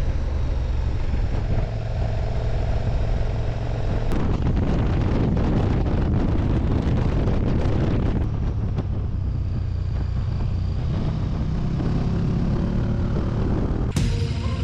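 KTM 1290 Super Duke R's V-twin engine running while the motorcycle is ridden, with wind rushing over the microphone; the rush grows louder for a few seconds from about four seconds in. A sharp click just before the end.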